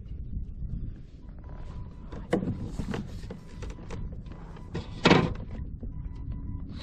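Handling knocks on a kayak: a sharp knock about two seconds in and a louder knock with a scrape about five seconds in, over a steady low rumble.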